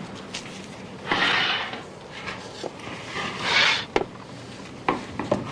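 A wooden baker's peel scraping twice along the deck of a commercial bakery oven as loaves are pulled out, followed by a few sharp knocks of wood against the oven.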